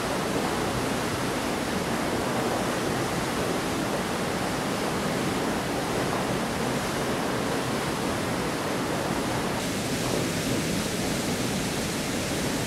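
Steady roar of a waterfall pouring into a rock-walled gorge pool, recorded at first on a Zoom H1. About ten seconds in, the tone shifts slightly as the recording switches to a stereo pair of Clippy EM272 mics on a Zoom F8n.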